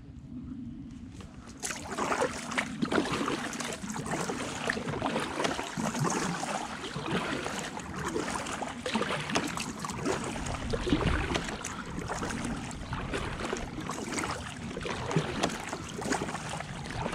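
Kayak paddle strokes splashing in the river, with water dripping and trickling off the blades, starting about one and a half seconds in.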